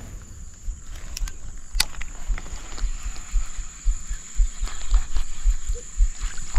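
Dull low thumps, about two a second, over a steady high-pitched buzz, with a couple of sharp clicks in the first two seconds.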